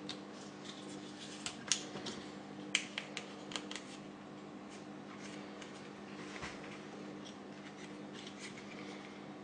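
Scattered small clicks and rustling of hands handling bundled wires and a small plastic part inside an opened ATX computer power supply, bunched in the first four seconds, over a faint steady hum.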